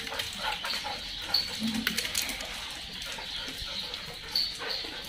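A pack of dogs moving about on a stone mosaic floor: scattered light clicks and scuffs of paws, with one short low dog vocal sound about a second and a half in.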